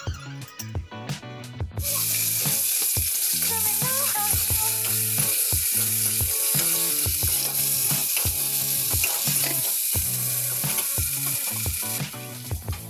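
Food frying in hot oil in an aluminium kadai, a loud steady sizzle that starts about two seconds in and cuts off abruptly near the end. Background music with a steady beat plays underneath.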